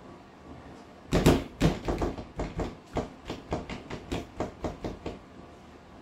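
Hand banging repeatedly on an LG dishwasher, a run of about fifteen sharp knocks over some four seconds that come a little faster and grow fainter toward the end. The banging is done to free a stuck float behind the AE code, which the owner thinks the banging reset.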